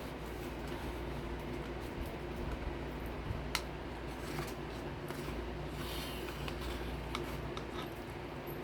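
Scattered small clicks and rustles of food being handled and eaten, crackers and a yogurt cup, over a steady low hum.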